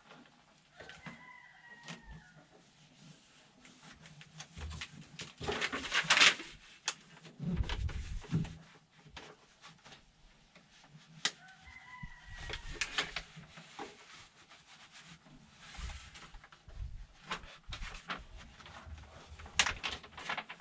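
Crinkling and rustling of backing paper being peeled off rubber-backed adhesive sound-deadening sheets, with a louder tearing rustle about six seconds in and dull thumps as a sheet is pressed onto the sheet-metal floor pan. A rooster crows faintly twice, about a second in and again about twelve seconds in.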